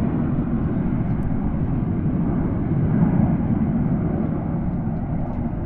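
Red Arrows' BAE Hawk T1 jets flying in formation, a steady jet rumble that swells slightly about three seconds in.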